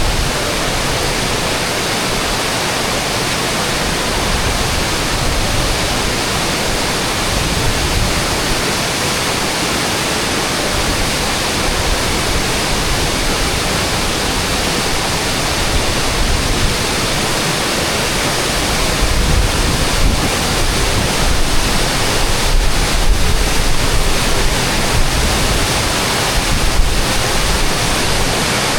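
Paltau waterfall: a loud, steady rush of falling water. In the last third the sound turns deeper and more uneven.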